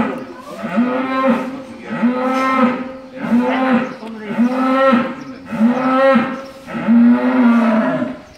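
Cattle mooing over and over: short, low calls about once a second, the last a little longer.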